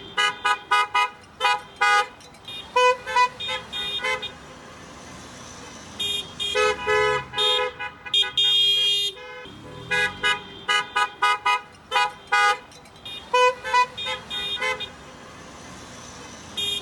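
Car horns honking in a parade: many short toots and a few longer blasts from several cars at slightly different pitches, overlapping in runs with two short lulls in between.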